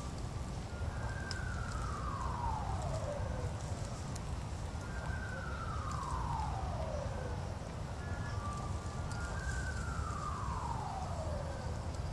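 A siren wailing, its pitch sliding slowly down three times, about four seconds apart, over a steady low rumble.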